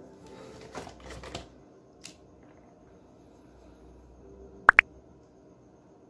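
Light handling knocks of a plastic Tamiya Mini 4WD car and its parts on a cutting mat in the first second and a half. Two sharp clicks follow in quick succession about three-quarters of the way through, over a faint steady hum.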